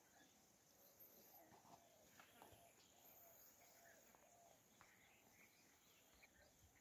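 Near silence: faint outdoor ambience with soft, short, repeated calls from distant animals.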